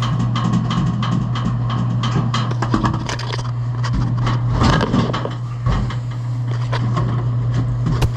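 Metal panels and fasteners clattering and knocking as an evaporator cover is refitted on a commercial refrigerator, over a steady low hum.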